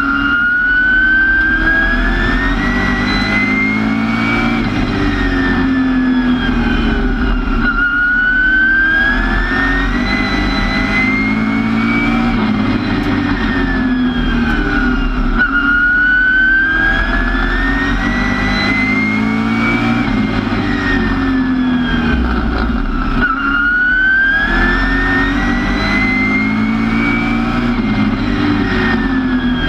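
Street stock race car's engine at racing speed, heard on board. Its pitch climbs for about four seconds on each straight and falls away through each turn. The cycle repeats about every seven and a half seconds as the car laps the oval.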